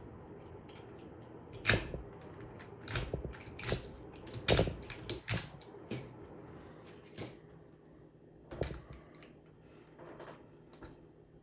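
Irregular sharp clicks and light knocks from handling a Master Lock 410 padlock and lock-picking tools, about a dozen of them, thinning out towards the end.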